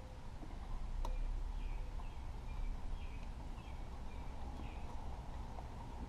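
Faint, short high chirps, like a small bird calling outside, repeating about once a second over a steady low hum, with one light click about a second in.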